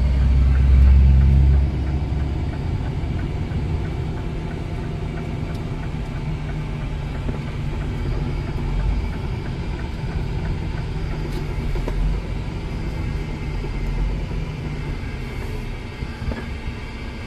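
Scania truck's diesel engine running with road rumble, heard from inside the cab as the truck drives downhill. A louder low rumble for the first second or two, then a steady drone.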